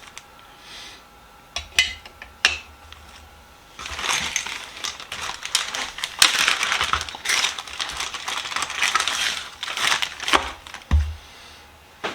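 Small steel sockets and tools of a 1/4-inch socket set clinking and rattling as they are handled: a few separate clicks, then several seconds of dense clattering, and one dull thump near the end.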